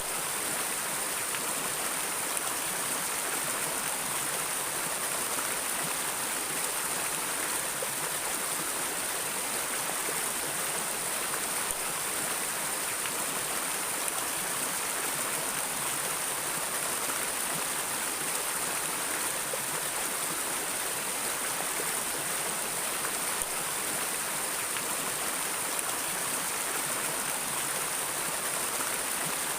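A stream of water flowing and splashing steadily over rocks, an even rushing with a bright hiss and no pauses.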